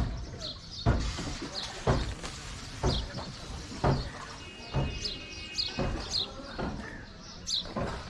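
A wooden shikara being paddled: its hull knocks in a steady rhythm of about one knock a second, with small birds chirping high over it.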